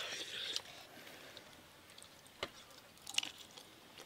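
A person eating rice and curry by hand: soft chewing and small wet mouth clicks, with a few sharper clicks about two and a half and three seconds in.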